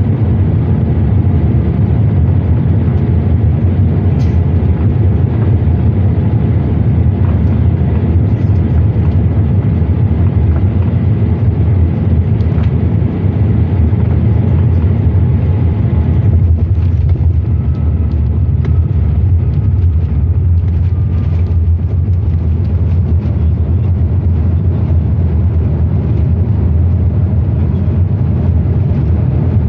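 Jet airliner cabin noise during landing: a steady deep roar of engines and rushing air on final approach. About halfway through the sound changes as the wheels touch down, and rattling and runway rumble follow as the jet rolls out with its spoilers up.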